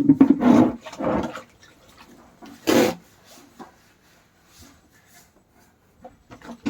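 Wet clothes being rubbed and scrubbed by hand: a few quick strokes at the start, one louder stroke about three seconds in, then mostly quiet.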